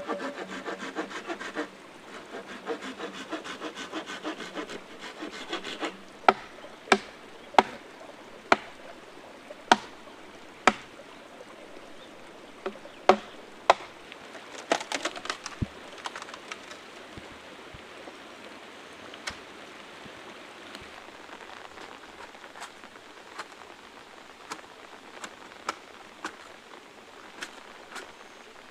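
A fast, rhythmic scraping or rubbing for about six seconds, then a string of about eight sharp knocks over the next several seconds, followed by lighter scattered ticks.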